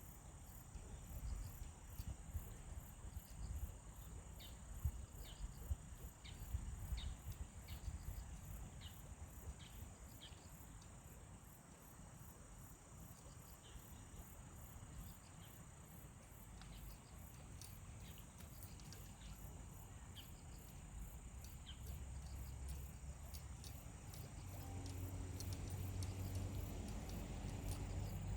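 Insects chirping in a steady, high chorus with a regular pulse, over a low rumble. Near the end a low hum comes in.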